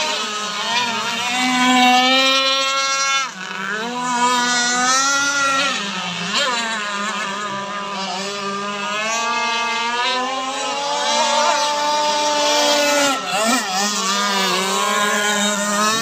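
Several remote-control racing powerboats running flat out together, their motors making an overlapping, high-pitched drone that keeps rising and falling in pitch as the boats speed up, turn and pass.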